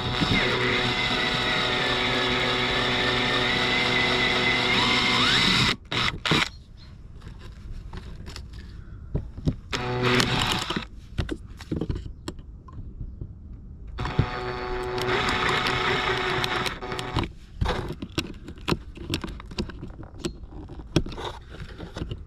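Electric drill running at steady speed, drilling out the plastic fixings of a car door handle: one run of about six seconds, a short burst near the middle, and another run of about three seconds later, with clicks and handling knocks between.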